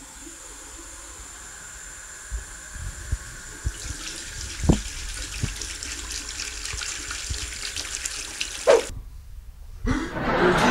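Water running from a tap into a bathroom sink while soapy hands are rubbed and rinsed under it, with a few small knocks. The water sound breaks off abruptly about nine seconds in, and a loud rushing noise comes in near the end.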